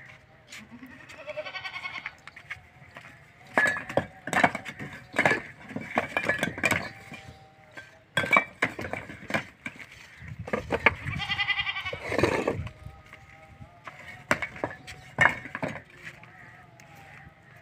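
Fired bricks clattering and knocking as they are pulled off a brick wall by hand and dropped onto a pile of loose bricks, in scattered knocks throughout. A goat bleats twice: about a second in, then a longer bleat around eleven seconds in.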